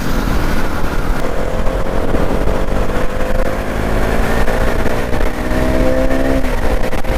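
Motorcycle engine running under way, its pitch climbing slowly as it accelerates, then dropping suddenly near the end. A heavy rumble of wind and road noise runs underneath.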